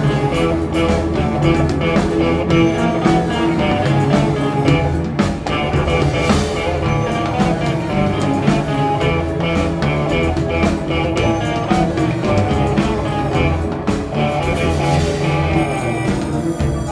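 Live art-rock band playing an instrumental passage with no vocals: a drum kit keeping a steady beat under electric guitar, with upright bass and keyboards in the mix.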